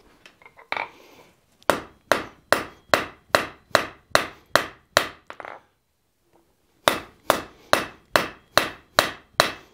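Hand hammer striking a glowing bar of S7 tool steel on the anvil, forging it down in steady blows about two and a half a second, each with a brief ring. The blows come in two runs, broken by a pause of about a second and a half in the middle.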